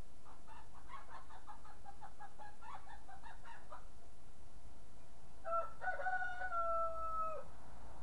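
A rooster crowing once, a held call of about two seconds that drops at the end. Before it comes a run of rapid, chattering short notes lasting about three and a half seconds.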